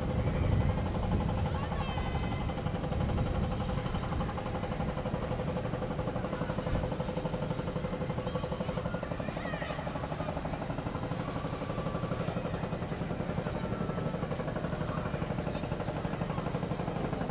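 Auxiliary engine of the two-masted schooner HMS Falken, built 1947, running steadily with an even fast pulse as the ship motors in with its sails furled.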